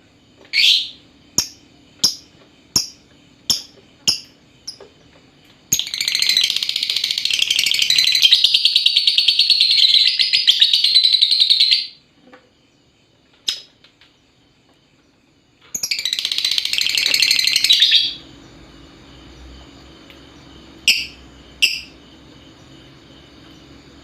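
Lovebird calling: a run of short sharp chirps, then two long fast rattling chatter calls (the 'ngekek'), the first about six seconds long and the second about two, followed by a few single chirps.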